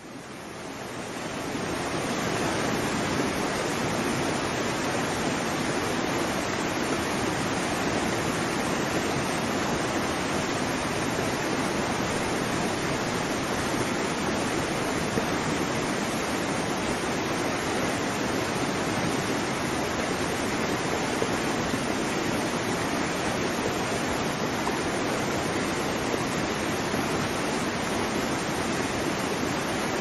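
Waterfall: a steady rush of falling water, fading in from silence over the first couple of seconds and then holding even.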